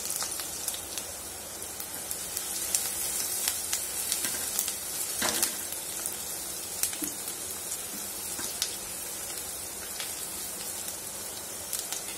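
Chopped onions sizzling in hot oil in a nonstick kadai, being sautéed: a steady hiss with scattered spitting crackles, one stronger burst about five seconds in. A silicone spatula stirs them partway through.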